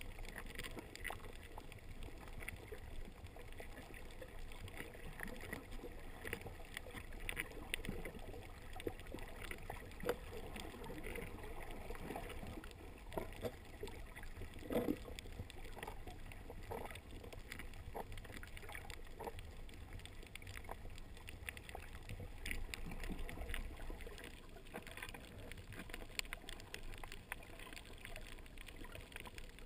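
Muffled underwater ambience picked up by a GoPro Hero 2 in its sealed waterproof housing. A steady low rumble of water is dotted with scattered faint clicks and crackles.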